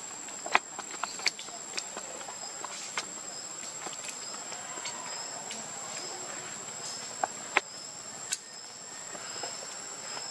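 Insects droning steadily, a continuous high-pitched tone with a fainter wavering chirp just below it. A few sharp clicks cut through, two near the start and two more later on.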